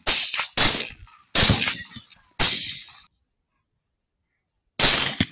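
Rifle shots fired in quick succession: four shots within about two and a half seconds, then after a pause one more shot near the end.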